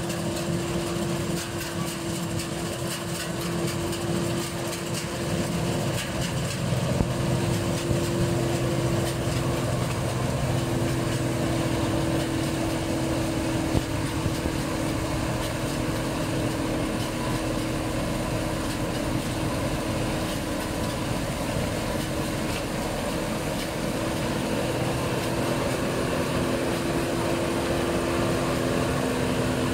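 New Holland 8070 combine harvester running steadily while harvesting rice, its engine and threshing machinery giving a continuous hum with a steady whine, broken by a few faint knocks.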